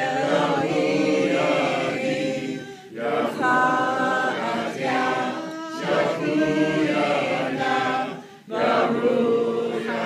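A group of mixed voices chanting a Jewish zikr in unison, a short sung phrase repeated over and over. Each phrase lasts about three seconds, with a brief dip for breath between repeats.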